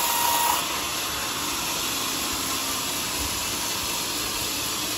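Large sawmill band saw running through a teak beam, a steady hissing machine noise. A high whine sounds over it and stops about half a second in.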